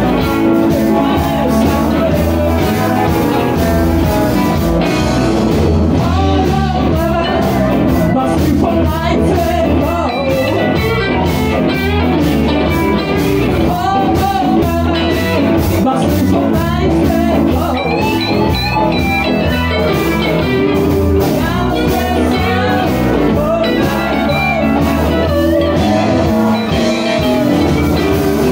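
Live blues band playing: a Les Paul electric guitar and a second electric guitar over electric bass and a drum kit, with bending melodic lines running through.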